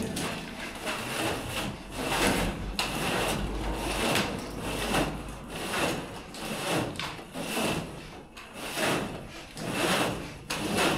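A long red cable being pulled through hand over hand, rubbing as it drags, in repeated rasping swishes about one to two a second.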